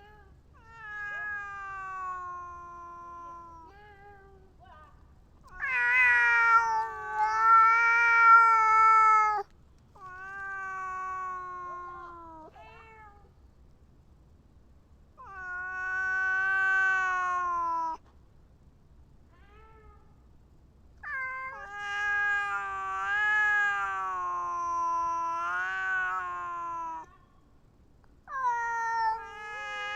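A cat yowling: about six long, drawn-out meows, each lasting two to six seconds with short pauses between, the longest in the middle of the run.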